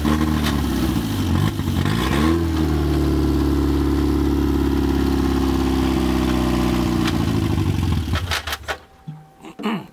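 An old Ford's carburetted petrol engine running: its revs rise and fall a couple of times in the first few seconds, then it holds a steady idle, and about eight and a half seconds in it stops abruptly, followed by a few clicks.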